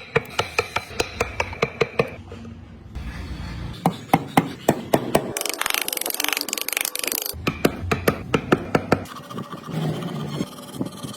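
Carving tool struck against wood in quick sharp taps, about three a second, in several short runs with brief pauses between them.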